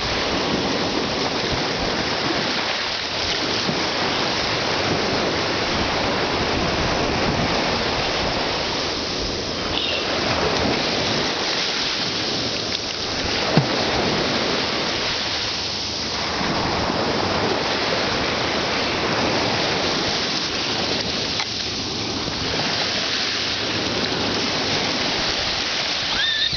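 Ocean surf breaking and washing up a beach, a steady rushing noise that swells and eases every few seconds. A single short click comes about halfway through.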